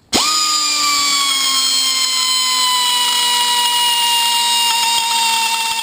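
Pneumatic die grinder with a rotary burr starting abruptly and running at full speed: a steady high-pitched whine whose pitch sinks slightly as it runs, with a few faint clicks near the end.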